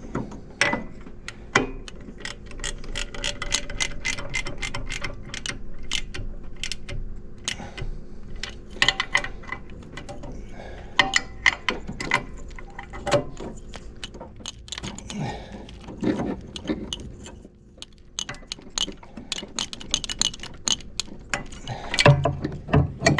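Hand socket ratchet clicking in quick runs of strokes with short pauses, as the VVT solenoid's mounting bolts are driven down after being finger-tightened.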